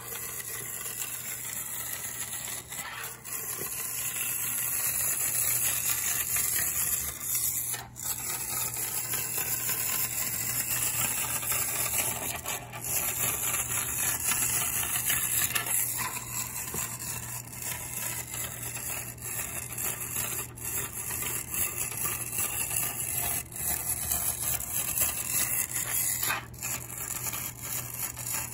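Vintage Hong Kong-made wind-up walking buggy car toy running: its clockwork motor whirs steadily while its plastic feet rattle on the tabletop. It gets somewhat louder about four seconds in.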